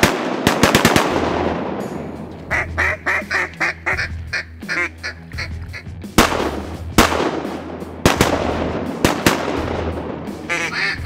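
A rapid series of duck quacks starting about two and a half seconds in, with more quacking near the end, over music with a steady low drone and sharp percussive hits near the start and again several times in the second half.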